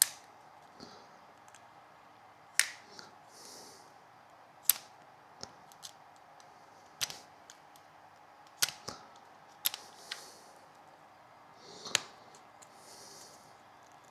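Sharp, isolated clicks and snaps, about seven of them spaced a second or two apart, from small hand tools being worked on electrical wire, with a few brief soft hisses in between.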